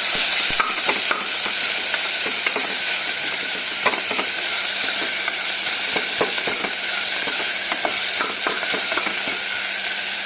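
Sliced onions and coriander leaves frying in oil, a steady sizzle, with a utensil scraping and stirring them in the pan every so often.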